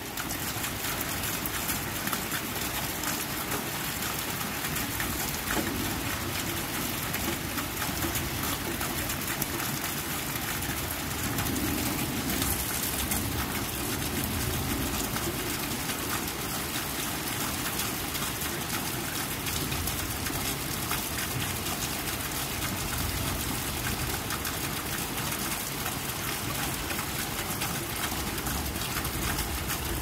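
Steady rain falling on a puddle and wet concrete pavement: many small drop hits over an even hiss.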